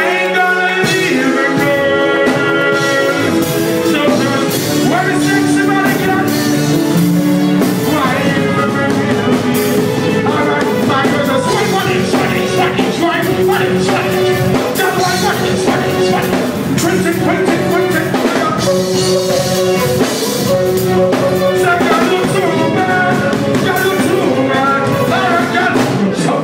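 Live reggae/dancehall music: a band with drums plays while a singer's voice carries over it.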